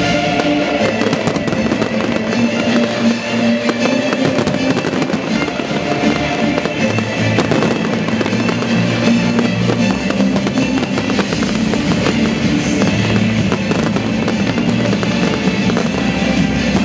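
Aerial fireworks bursting and crackling, many sharp cracks throughout, mixed with loud music playing at the same time.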